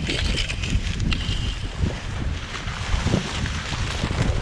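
Wind buffeting the microphone, with dry cattail stalks and grass brushing and crackling against it as it pushes through the reeds; the crackling is busiest in the first second or so.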